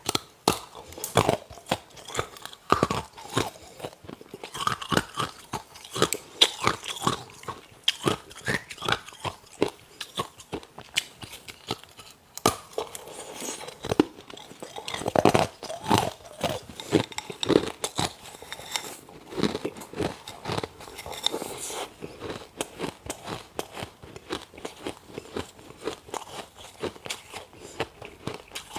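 A person biting and chewing ice: a dense, irregular run of sharp crunches.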